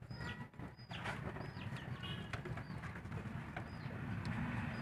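Birds chirping: short high chirps about once a second, over a low steady hum.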